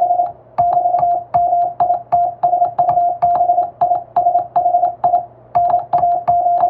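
Morse code sent by hand on a telegraph key: a steady beep keyed into short dots and longer dashes, with a sharp click at the start of each stroke. Longer gaps near the start and about three-quarters of the way through mark the spaces between letters or words.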